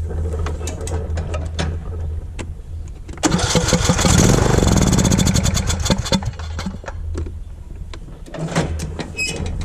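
Riding lawn mower engine being cranked, then catching about three seconds in and running loudly for a few seconds on starter fluid before dropping back. That it runs on starter fluid shows that spark and compression are good and that the no-start is a fuel problem.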